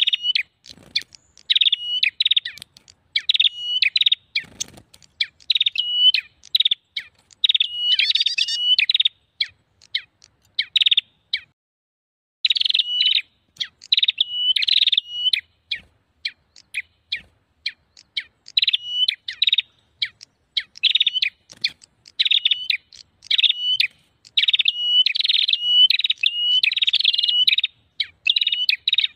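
Prenjak songbirds calling in a busy, agitated run of sharp, rapidly repeated chirping phrases. This is a lure-call recording of the kind used to draw prenjak in. The calling stops for a couple of seconds about ten seconds in, then resumes just as densely.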